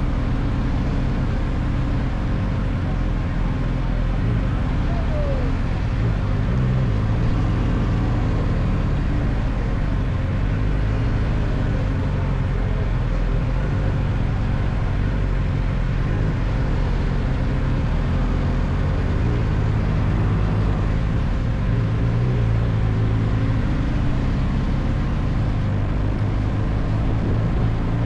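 Steady low rumble of a car's engine and tyres while driving, with a faint constant hum over it and a brief falling squeak about five seconds in.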